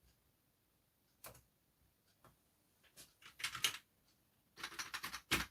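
Keystrokes on a freshly repaired PC keyboard being tested: a single click about a second in, then short quick runs of key presses around the third second and again near the end.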